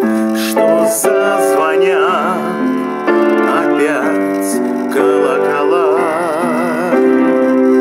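Male voice singing held notes with a wide vibrato over sustained electric keyboard chords.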